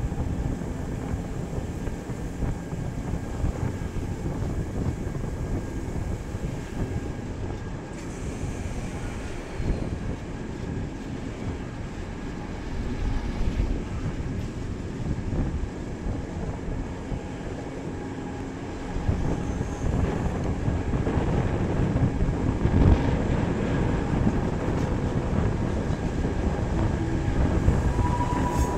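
Electric mountain railway train running downhill, a steady rumble of wheels and drive on the track, getting louder about two-thirds of the way through.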